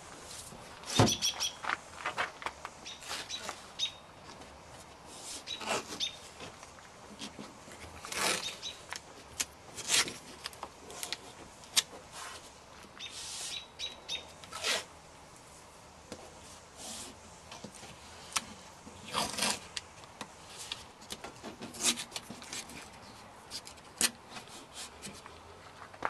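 Masking tape pulled off the roll and torn into strips in a run of short, sharp rips, a few seconds apart, as strips are stuck on to hold a car door window up.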